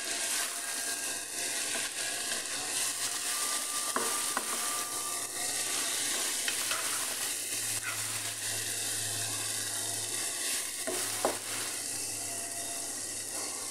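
Chopped tomatoes, nuts and spices sizzling in a frying pan while a wooden spoon stirs them, with occasional knocks of the spoon against the pan.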